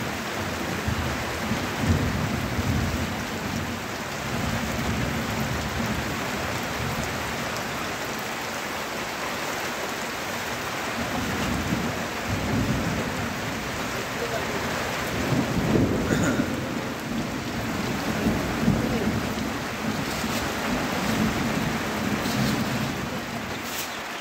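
Heavy rain falling steadily, with a low rumble that rises and falls underneath every few seconds.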